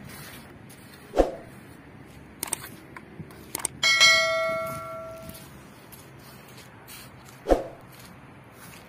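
A few light knocks, then a single hard metallic clang about four seconds in that rings on like a bell for about a second and a half. Two sharp thuds fall about a second in and near the end.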